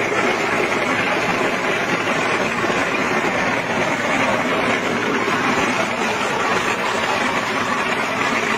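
Green-walnut hulling machine running, a steady, even mechanical noise as it churns the walnuts in water.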